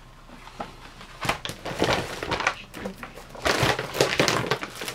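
Crinkly packaging rustling and crackling as craft purchases are handled and rummaged through, in irregular bursts that are loudest about three and a half seconds in.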